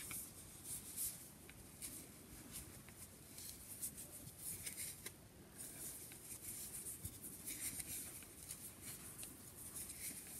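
Wooden knitting needles and thick wool yarn rubbing and clicking softly as stitches are worked. The result is faint, scratchy rustles in short bursts every second or so.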